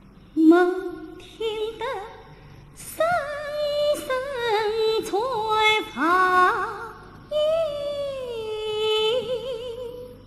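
A woman singing a slow, ornamented line in Chinese opera style, with wide vibrato and pitch slides, in four phrases separated by short breaths, almost unaccompanied.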